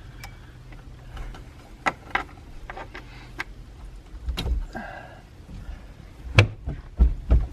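Scattered light clicks and knocks of parts being handled inside a car, with heavier thumps about six and a half and seven seconds in.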